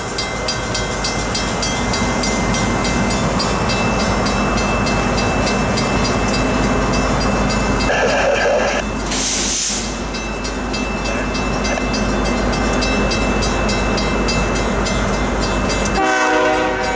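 Diesel freight locomotives running at a rail yard, a steady loud rumble with a fine regular ticking. A short pitched sound comes about eight seconds in, followed by a brief hiss.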